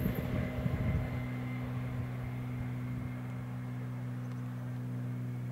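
Red DB Talent 2 electric multiple unit running away from the listener: a steady low hum with rolling noise on the rails, slowly fading. Gusts of wind buffet the microphone in the first second.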